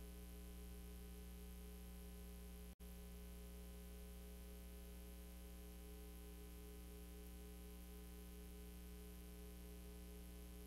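Near silence apart from a faint, steady mains hum with hiss, which cuts out for an instant about three seconds in.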